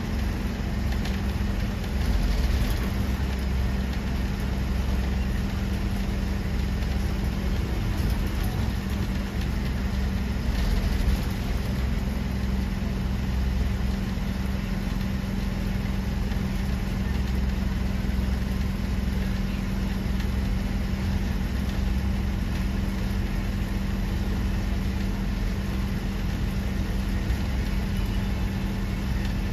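Bus engine running with a steady low hum under an even layer of noise.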